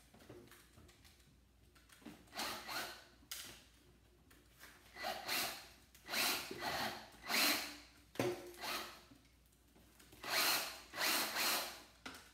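Drill run in repeated short bursts of about half a second, turning a Stripmeister wire stripper that pulls thick old dryer cable through its blade. The stiff, bendy cable feeds through slowly.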